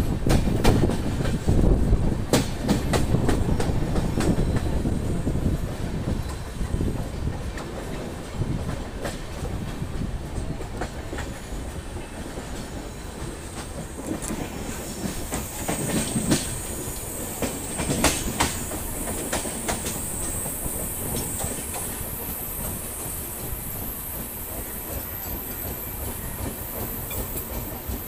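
Passenger train running on the rails: a low rumble with wheels clacking over rail joints. The rumble is heaviest at first and eases within several seconds. A thin high wheel squeal comes in about halfway.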